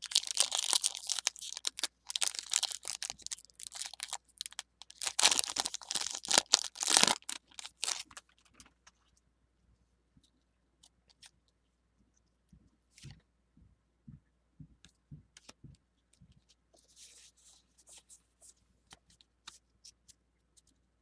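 Foil Pokémon Sword & Shield booster pack wrapper crinkling and being torn open, loud for about the first eight seconds. After that, only faint, scattered light taps and clicks as the cards are handled.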